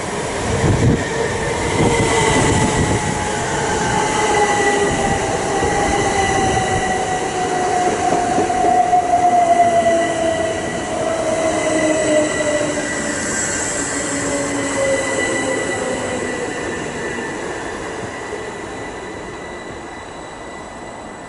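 A train moving through the station, with a whine that falls slowly in pitch. It is loudest about halfway through and fades toward the end.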